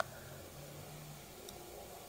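Faint, soft sounds of a lip gloss wand being brushed over the lips, over a low steady hiss, with a small click about one and a half seconds in.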